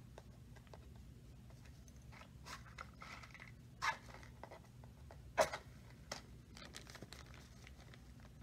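A wooden match being taken from its box and struck on the box's striking strip: a few short, sharp scrapes, the loudest about five and a half seconds in, with light rustling between them over a low steady hum.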